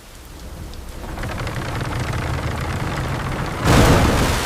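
Steady heavy rain with a low rumble, swelling over the first second, then a loud crack of thunder near the end.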